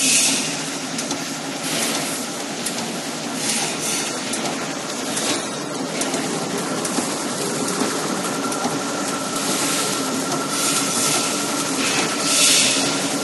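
Zipper plastic bag-making machine running: a steady mechanical clatter with a steady hum, broken by short hissing bursts every second or two.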